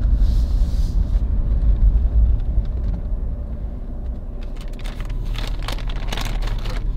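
Low road rumble of a Toyota 4Runner heard from inside the cabin while driving, heavy at first and easing off about four seconds in. Scattered light clicks and rustles follow near the end.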